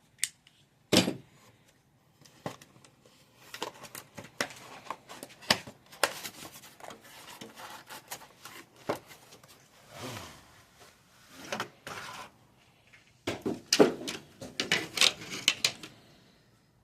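Metal sockets clinking and clattering in quick, irregular clicks as they are picked out of a toolbox drawer and set onto socket tray organizers.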